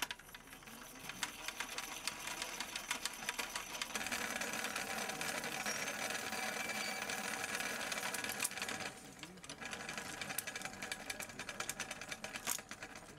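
Film rewinder spinning a reel of film fast, a rapid, dense mechanical clatter that grows louder about four seconds in and eases off near nine seconds.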